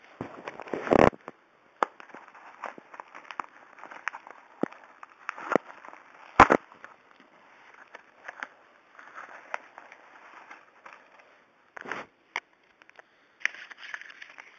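A mailed package being torn open and its packaging handled: irregular crackling and rustling, with a loud tear about a second in and a sharp snap around six and a half seconds in.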